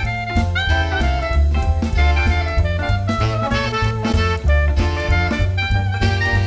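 Upbeat jazz music with saxophone or brass melody over bass and drum kit, with a steady beat.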